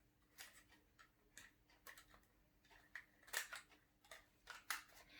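Faint, irregular plastic clicks and taps from handling an RC car's remote control while closing its battery compartment.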